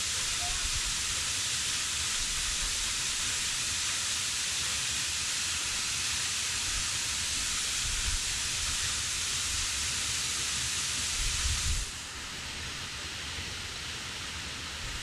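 Close, steady rushing of a waterfall, with an uneven low rumble underneath. The sound drops suddenly to a quieter, duller rush about twelve seconds in.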